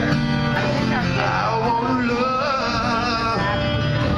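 A man singing live while playing an acoustic-electric guitar, voice and guitar amplified together.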